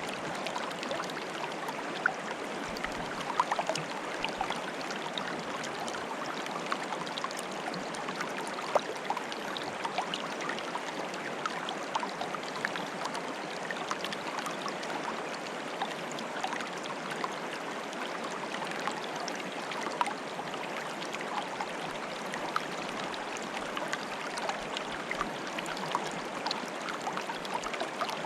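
Shallow water bubbling and trickling steadily, a dense patter of small gurgles and droplets with a few louder plinks now and then.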